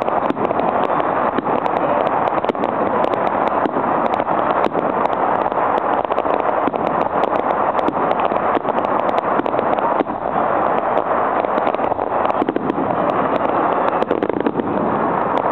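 A fireworks display going off in a continuous barrage: a steady rushing noise with many sharp crackling snaps all through.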